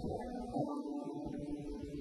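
Soft background music, with one note held from about half a second in.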